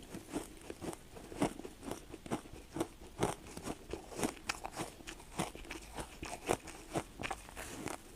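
Ice being bitten and chewed: sharp, irregular crunches, about two a second.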